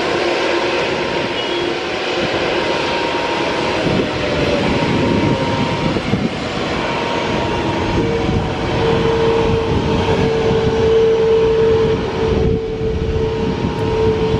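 Rolls-Royce Trent 7000 turbofans of an Airbus A330neo running at taxi power: a steady roar with held whining tones. A stronger steady whine comes in about eight seconds in and holds.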